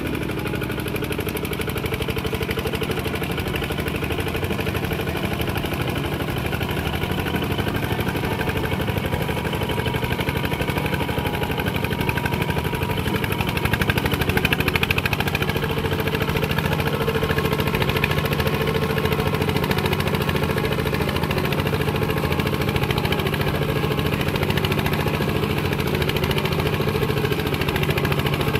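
Kubota RT120 walking tractor's single-cylinder diesel engine running steadily under load as its cage wheels work through deep paddy mud, a little louder for a moment about halfway through.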